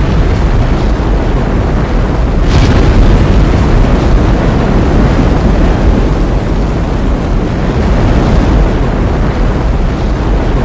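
NASA Space Launch System rocket lifting off: its four RS-25 engines and two solid rocket boosters make a loud, steady roar with a deep rumble.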